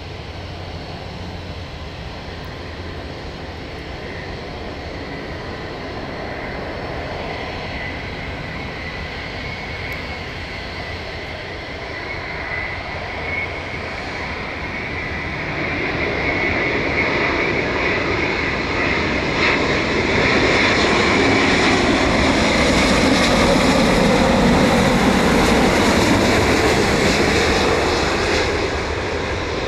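Airbus A350-900 airliner's Rolls-Royce Trent XWB jet engines on landing approach, a steady high fan whine over a broad rush. It grows louder as the airliner comes in close, is loudest in the last third, and begins to fade just before the end as it passes.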